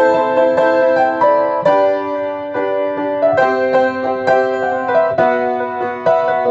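Solo piano playing a slow Christian worship song in E minor: held chords, with a melody line picked out above them as new notes are struck every half second or so.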